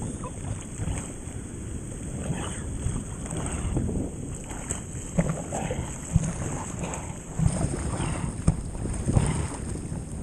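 Wind buffeting the microphone over rushing whitewater surf around a stand-up jetski, with several sharp splashes of spray in the second half.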